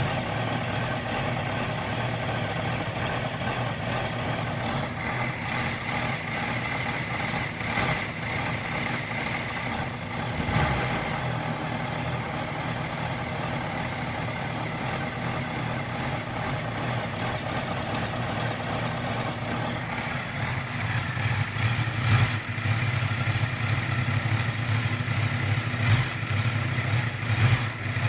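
2018 Honda CBR650F's inline-four engine idling after a cold start, running rough, which the owner takes for a rough cold idle. The idle carries a few brief louder stumbles and gets louder and more uneven in the last third.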